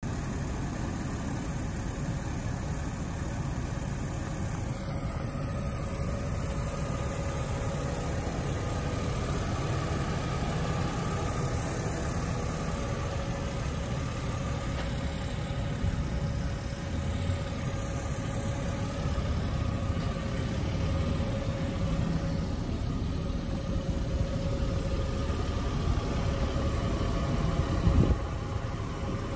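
Car engine idling steadily, a constant low rumble with an even hum. A single brief knock near the end.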